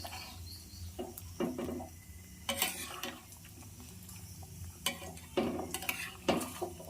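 A cooking spoon scraping and clinking against a pan as a thick chicken curry is stirred, in scattered strokes about a second apart.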